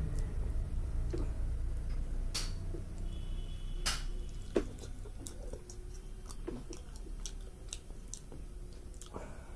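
Eating by hand: scattered small clicks and smacks of chewing and of fingers working rice on a plate, with a few sharper clicks near the middle.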